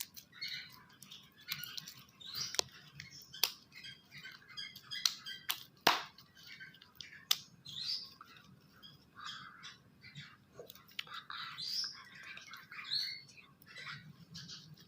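Sticky glue slime being kneaded and mixed, giving irregular wet squelches, pops and clicks.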